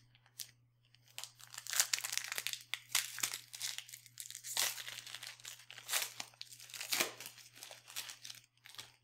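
A plastic trading-card pack wrapper being torn open and crinkled by hand, a dense run of crackling and tearing from about a second in until near the end.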